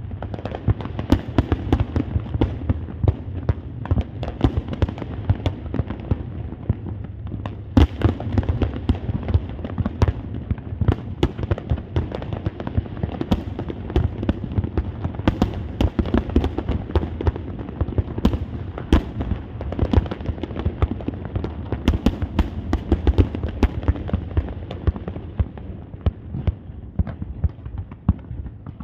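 Large fireworks display: many sharp bangs in quick succession, several a second, over a steady low rumble.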